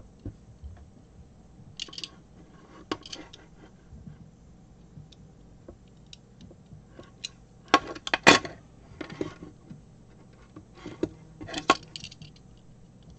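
Small plastic cable-jacket stripper clicking and scraping as it is clamped onto and worked along the end of a red Ethernet cable, in scattered sharp clicks with the loudest cluster about eight seconds in.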